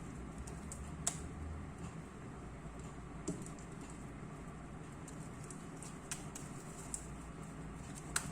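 Sticky homemade slime being handled with bare, detergent-coated hands: scattered small clicks and squelches, louder about a second in and again a little after three seconds, over a steady low hum.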